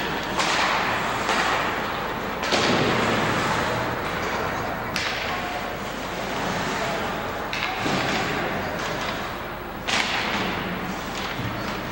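Ice hockey play in an indoor rink: several sharp knocks and cracks of sticks and puck against the ice, boards and glass, each ringing out in the hall, the loudest about two and a half seconds in, over steady arena noise and distant voices.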